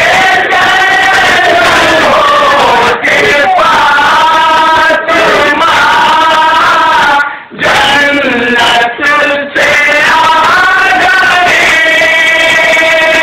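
Men chanting a nauha, a Shia mourning lament, led by a reciter singing loud, long held lines. There are short breaks between lines, the longest about seven seconds in.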